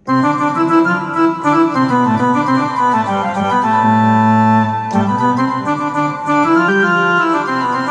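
Roland Lucina AX-09 keytar played with a sustained synth tone. A melody of shifting notes starts abruptly and runs over held low notes, with one long note held in the middle.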